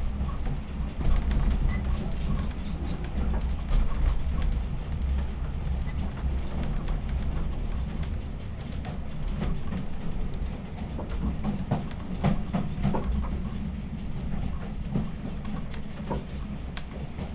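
Railway coach running along the track: a steady low rumble from the wheels and running gear, with scattered clicks and knocks of wheels over the rails, thickest about two-thirds of the way through.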